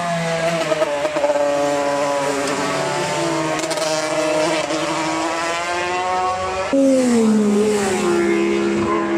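Road-racing motorcycles running at high revs on a public-road circuit, engine notes holding and gliding slowly. About seven seconds in, a louder bike cuts in and its pitch falls.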